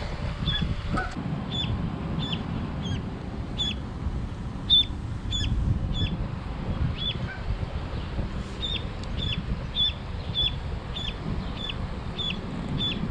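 A lone duckling peeping over and over, short high peeps about two a second, each dropping in pitch at its end, with a brief pause a little past the middle: the distress calls of a duckling separated from its mother. A low rumble runs underneath.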